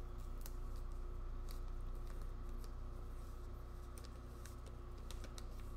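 Scattered faint clicks and rustles of plastic-bagged comic books being handled, over a steady low hum.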